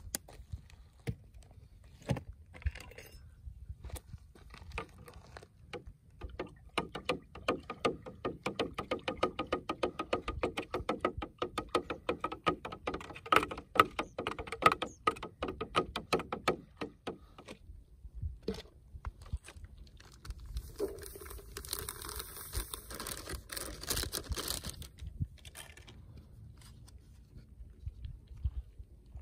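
A utensil stirring the liquid inside a large plastic jug: a fast, even run of clicks and scrapes against the jug that lasts about ten seconds. A few seconds of hissing noise follow later.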